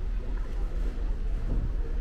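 Wind buffeting the microphone on an open ship deck: a steady low rumble.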